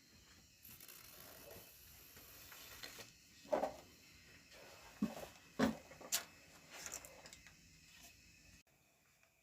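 Woodworking handling sounds: scattered knocks and clatter of wood pieces and tools being moved about, with a few louder knocks in the middle. The sound cuts off abruptly near the end.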